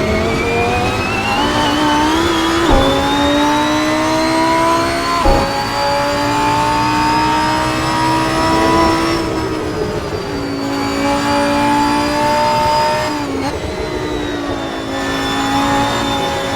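Lamborghini Huracán Performante's naturally aspirated V10 accelerating hard at full throttle, rising in pitch and dropping sharply with two quick upshifts about two and a half and five seconds in, then climbing slowly through the next gear. It eases off around ten seconds in and dips briefly with a gear change near the end.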